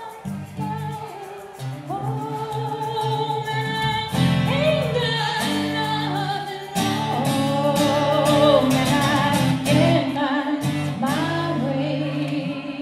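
A woman singing into a microphone with live acoustic guitar strummed alongside, holding long notes with vibrato.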